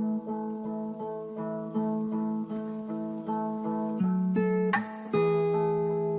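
Acoustic guitar background music: plucked and strummed chords changing every half second or so, with a louder strum about five seconds in.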